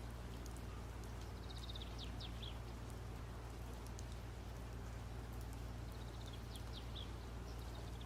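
A small bird singing the same short phrase twice, a quick run of high chirps ending in falling notes, over a steady low hum.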